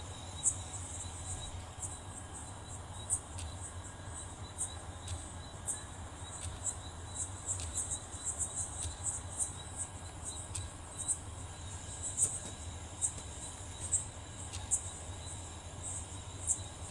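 Insects chirping: short, high chirps at an uneven pace, over a low steady hum.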